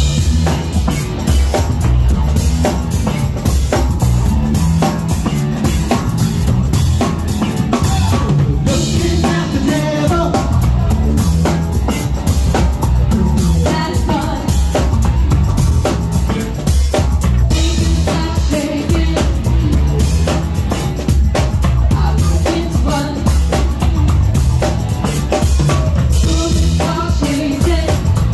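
Live funk band playing loudly: drum kit keeping a steady beat under a heavy bass guitar and keyboards, with a woman singing.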